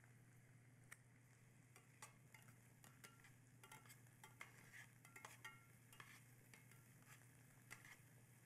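Chopped scallions being stirred with metal tongs in a stainless steel skillet of hot olive oil: a faint sizzle with scattered light clicks and scrapes of the tongs against the pan, busiest in the middle.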